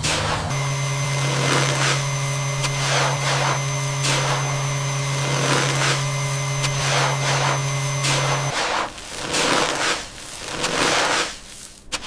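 Robot vacuum running over sand and dust: a steady motor hum with a thin high whine, over repeated scratchy swishes from the brushes sweeping grit. The hum cuts off about two-thirds of the way through, leaving only the uneven swishes.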